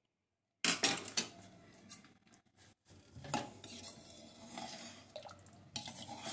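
A ladle stirring chicken stew in an aluminium pressure cooker: a few sharp clinks against the pot about a second in, then scraping and stirring through the liquid.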